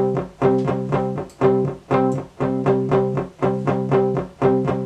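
A music sample (WAV file) playing forward in its original, unreversed form: a repeating loop of short pitched notes, several a second, each starting sharply and dying away.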